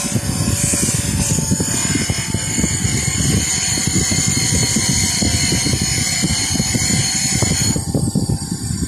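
Bench grinder motor spinning a stack of abrasive wheels with a small brass banjo oil can pressed against them: a steady whirring rumble with a high rubbing hiss that drops away near the end. The oil can's worn chrome plating is being taken back to the brass.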